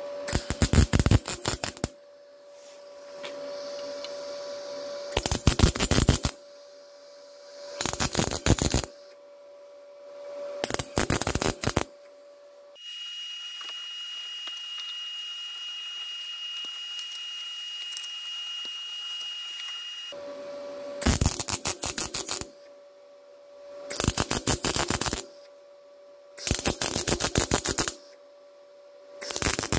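MIG welder tacking thin sheet steel: about eight short bursts of crackling arc, each roughly a second long, with a steady hum between them. Midway the tacking pauses for about seven seconds of steady hiss with a high steady tone.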